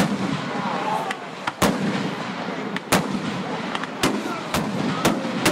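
Aerial fireworks shells bursting in a string of sharp bangs, about one a second, with continuous noise between them.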